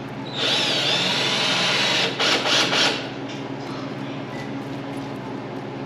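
Power drill running for about two and a half seconds, its whine shifting in pitch and surging unevenly as it bites, drilling out holes in a car's body panel; it stops about three seconds in.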